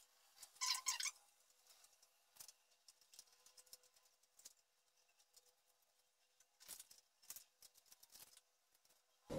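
Scissors snipping through printer paper, faint: a quick cluster of snips about a second in, scattered single snips, then another run of snips near the end.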